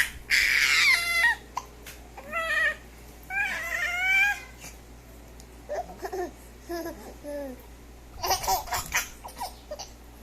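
Baby boy babbling and squealing in high-pitched vocal bursts, loudest in the first few seconds, then softer, lower coos after about six seconds and a short breathy, giggly burst near the end.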